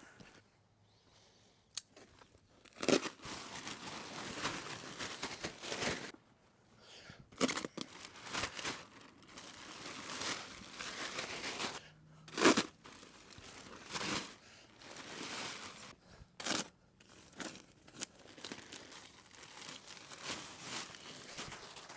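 Bagged wood mulch being handled and spread: irregular rustling and crunching, with several short louder bursts.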